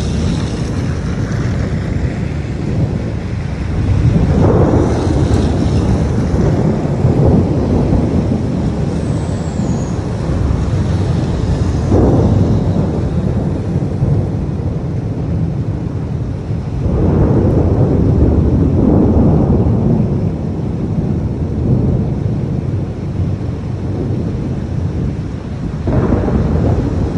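Thunder rumbling continuously in long rolling waves, with about four louder swells through the storm.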